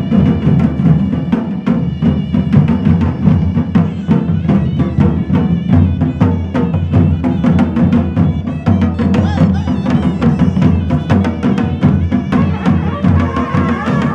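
Traditional Himachali deity-procession band playing loud, fast, continuous drumming. A pitched melody instrument comes in near the end.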